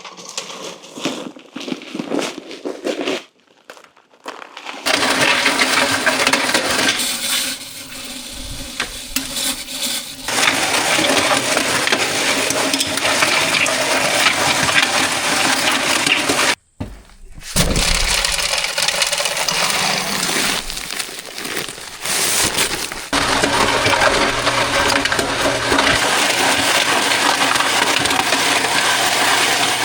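Bagged concrete being mixed and poured: a continuous gritty churning and scraping of wet concrete and aggregate, broken up and patchy for the first few seconds, then steady with a couple of short breaks.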